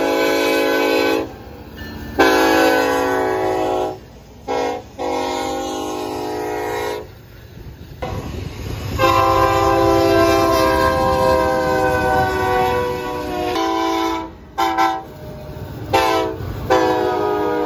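Diesel freight locomotive horns blowing a series of blasts, short and long, including one long blast of about four seconds, over the low rumble of passing trains. The horn chord changes between blasts as different locomotives sound.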